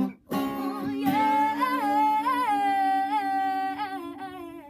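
A singer holds a long sung 'ooh' with small vocal runs over an acoustic guitar chord left ringing after a final strum or two near the start, all fading toward the end: the drawn-out close of the song.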